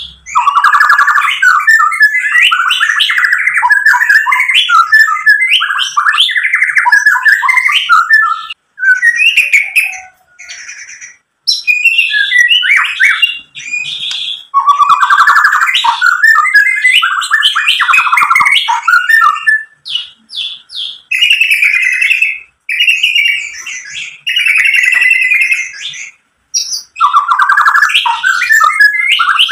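White-rumped shama (murai batu) singing a long, varied song of rapid whistles, chatters and mimicked phrases, broken by several short pauses.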